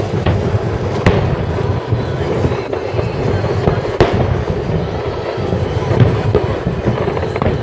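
Aerial firework shells bursting in sharp bangs, the strongest about a second in and again about four seconds in, over a continuous low rumble.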